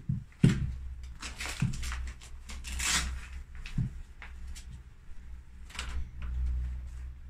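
Motorcycle boots being handled and pulled on: a few dull knocks and several rustling, scraping sounds of leather and gear, with the loudest knock about half a second in and a longer rasp about three seconds in.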